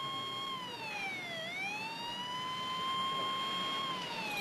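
Police siren wailing: a single tone that holds, sweeps down and climbs back up about a second and a half in, holds again, then begins to fall near the end.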